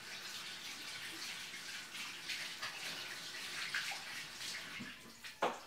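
Kitchen tap running as hands are washed under the stream, a steady splashing that stops about five seconds in. A single sharp knock follows just after.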